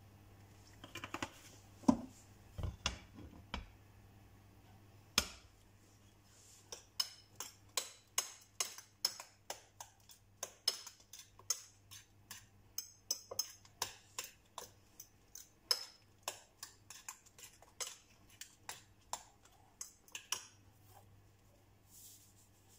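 A metal utensil clinking against a ceramic bowl while an eggplant and egg mixture is beaten, about two taps a second, after a few separate knocks in the first seconds.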